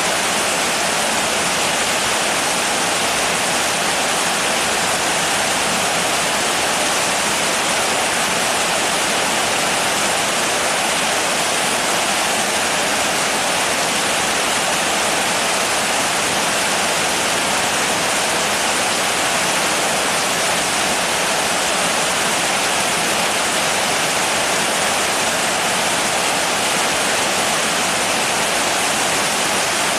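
Steady rain, an even hiss that holds the same level throughout, with no single drops or other sounds standing out.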